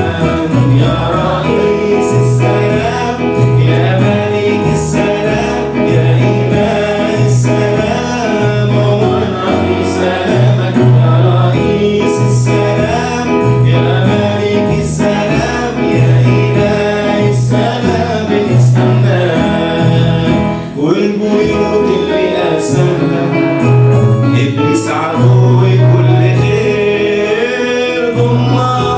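A man sings an Arabic worship song to electronic keyboard accompaniment, with a steady beat and a repeating bass line.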